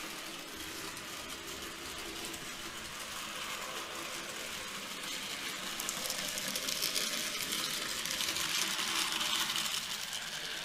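N gauge model train, an A4 class locomotive hauling coaches, running along the layout track. Its wheels and motor make a steady mechanical rattle with fine rapid clicking, which grows louder from about halfway as the train approaches and is loudest near the end.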